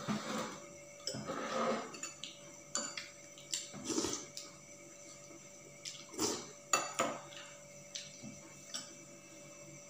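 Spoons clinking and scraping against steel plates and bowls during a meal: a scatter of separate clinks and knocks over a faint steady hum.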